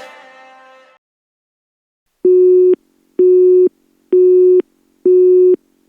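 Background music fading out, then after a short silence a telephone busy tone: a steady beep pulsing on and off about once a second, four times.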